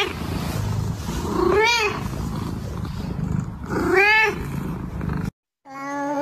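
House cat meowing twice, each a short call that rises and falls in pitch, over a low steady rumble. Near the end the sound cuts out for a moment and music begins.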